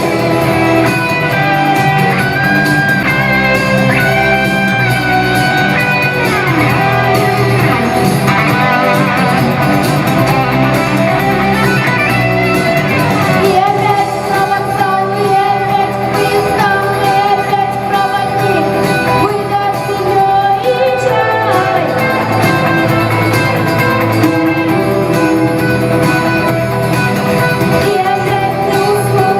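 Rock song with guitar and a singing voice.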